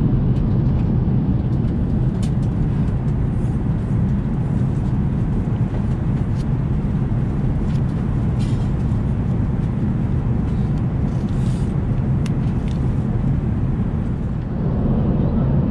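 Steady low rumble of an Airbus A380's cabin in flight, with a few faint paper crinkles from an airsickness bag being handled.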